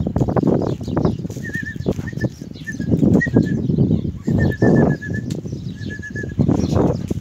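Rustling and scraping of a hand digging through dry grain feed in a plastic tub, in irregular bursts. Short, high chirping trills recur several times over it.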